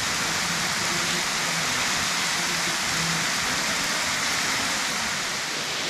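Waterfall plunging over a rock ledge onto the rocks below: a steady, even rush of falling water.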